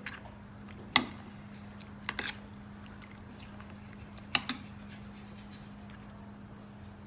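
A metal spoon clinking against the side of a bowl several times while stirring a wet marinade, the sharpest clink about a second in, over a steady low hum.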